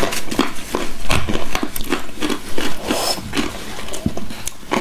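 Close eating sounds: slurping and chewing a spoonful of stringy, cheesy cream soup, an irregular run of mouth clicks and smacks.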